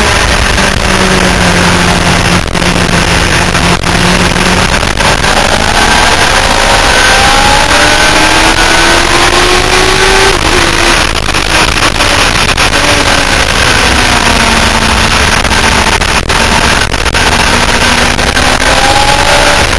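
Motorcycle engine under load at speed on a race track, heard from an onboard camera. Its pitch rises as it accelerates, with a break about ten seconds in, under loud wind rush on the microphone.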